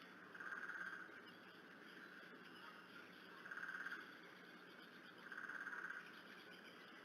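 Three faint, short, pulsed 'plopping' sounds, each about half a second long, repeating every two to three seconds over a quiet background. Their source is unknown: a frog-like call or a pond pump.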